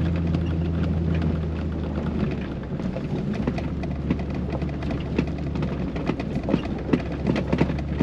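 2000 Chevrolet Silverado pickup running, heard from inside the cab: the steady engine hum eases off about two seconds in. After that the truck rolls slowly over a rough gravel road, with loose stones clicking and popping under the tyres several times a second.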